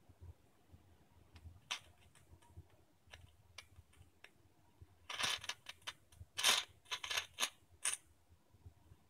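Scattered sharp clicks and ticks, then about three seconds of loud, dense crackling bursts from a 12 V computer fan being overdriven at around 60 V DC.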